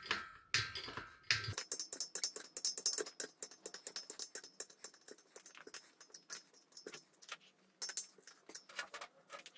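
Hand screwdriver turning a screw through a steel table leg's mounting plate, making a dense run of quick, irregular clicks, with a few heavier knocks in the first second and a half. The screw is near the end of its travel and is hard to turn by hand.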